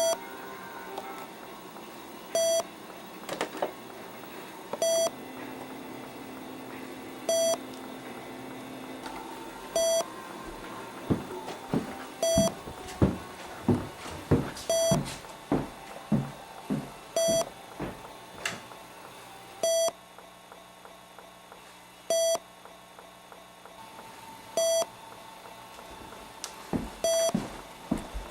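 An electronic beep, one short single-pitched tone about every two and a half seconds. Around the middle comes a quick run of loud knocks or thumps, which are the loudest sounds here.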